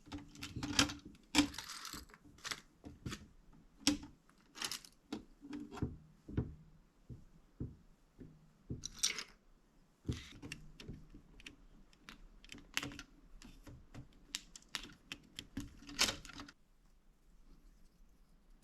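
Plastic building bricks clicking and rattling as they are handled and pressed together by hand, in irregular sharp clicks. The clicks stop about three-quarters of the way through.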